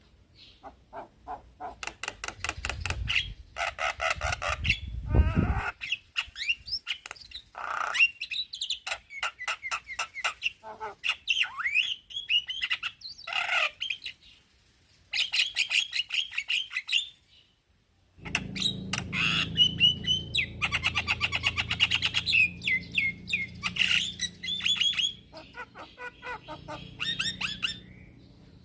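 Male Javan myna singing: a varied run of rapid chattering note trains, whistled slurs and harsh squawks. There is a brief break about two-thirds of the way through, after which the song goes on over a low steady hum.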